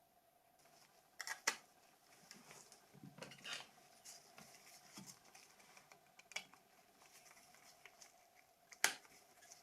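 Faint, scattered clicks and small scrapes of a plastic mobile phone shell being handled during reassembly, with a sharper click about a second and a half in and another near the end.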